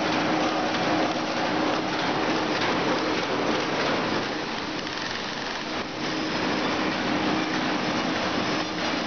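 High-speed wire mesh welding machine running: a dense, steady crackle from the welds and sparks along the mesh, over a steady hum.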